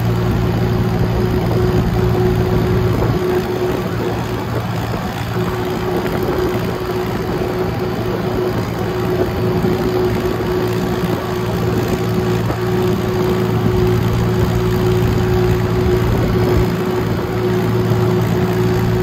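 Vintage tractor engine running steadily on the move: a constant low drone with a steady higher hum over it and rough rumble underneath.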